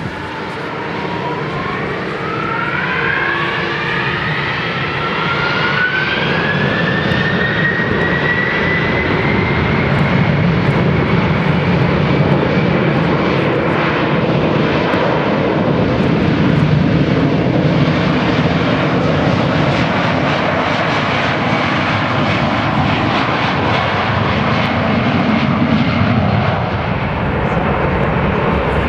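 Boeing 767-300ER's twin Pratt & Whitney PW4000 turbofans spooling up to takeoff thrust: a whine rising in pitch over the first ten seconds or so, then a steady loud roar as the jet runs down the runway on its takeoff roll.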